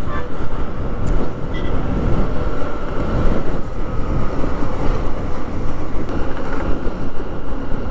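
Steady wind and road noise of a motorcycle moving at highway speed, with no clear pitch or break.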